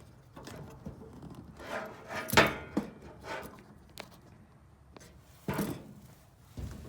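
Irregular knocks, clunks and rubbing of objects being handled and set down, the loudest clunk about two and a half seconds in, with a sharp click about four seconds in and another thud near the end.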